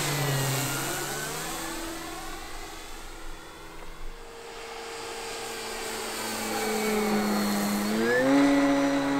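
Electric motor and propeller whine of an E-flite Carbon-Z Cessna 150 Aerobat RC plane in flight. The pitch falls as it passes at the start, the sound fades as it flies off, then grows louder and jumps up in pitch about eight seconds in.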